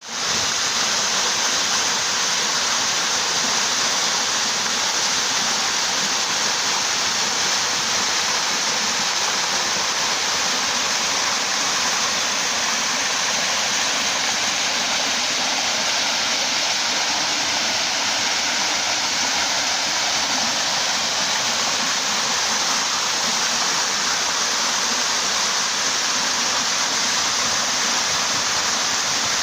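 Waterfall rushing: a steady, unbroken roar of falling and splashing water.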